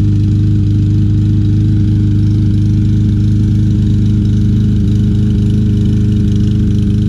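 Troy-Bilt TB200 mower's 150cc Briggs & Stratton engine running with a miss, skipping now and then in its firing. The miss remains after a carburetor cleaning, fresh gas, a new spark plug and a new flywheel key.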